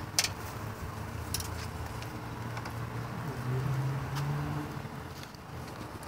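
A few sharp knocks and clicks of a long pole working in a wall vent as a bird's nest is pried out, over a steady low hum.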